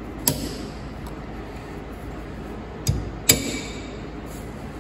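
Steel needle-nose pliers clicking against a cotter pin and castle nut as the pin is bent over: one sharp metal click about a quarter second in and two more near three seconds in, the last ringing briefly. A steady low hum runs underneath.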